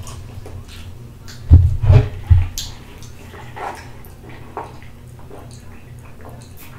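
Close-miked eating and drinking sounds: three dull thumps about a second and a half in, then soft wet mouth clicks and sips through a drinking straw from a mason jar.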